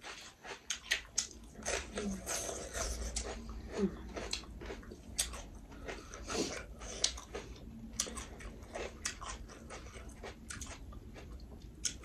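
People chewing and biting food at close range: a run of irregular small crunches and clicks.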